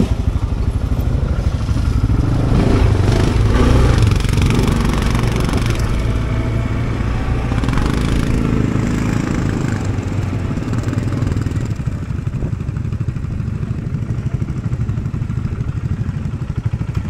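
ATV engine revving unevenly as the quad works its way up and pulls in, then settling to a steadier, lower running from about ten seconds in.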